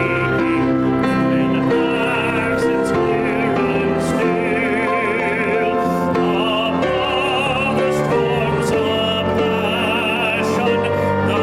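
A hymn being sung with instrumental accompaniment: held notes, with a singing voice with wide vibrato carrying above them.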